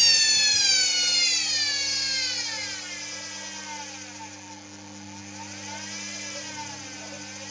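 Washing-machine motor driving a cut-down washing-machine drum through a belt, its high whine falling steadily in pitch and getting quieter over the first few seconds as the speed comes down, then running on at low speed with a gently wavering pitch over a steady hum.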